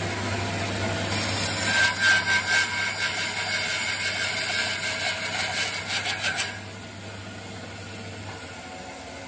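Bandsaw running, its blade cutting through timber for about five seconds starting about a second in. After the cut the motor hum carries on more quietly and stops shortly before the end.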